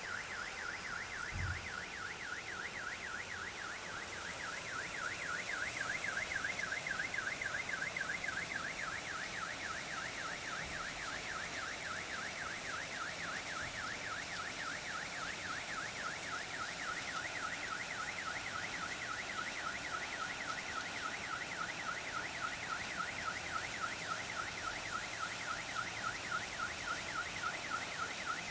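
Car alarm sounding a fast, steady warbling tone that starts and stops abruptly, over the steady hiss of rain.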